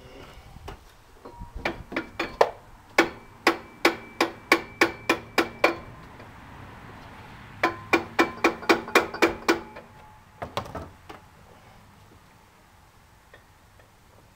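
Hammer blows on a metal engine part, struck fast at about three a second, each leaving a metallic ring. One run of about a dozen blows, a short pause, then a second run of about six and a few last taps.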